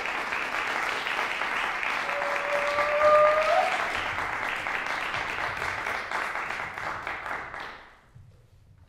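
Audience applauding in a concert hall, with one long cheer from a listener about two seconds in; the clapping dies away near the end.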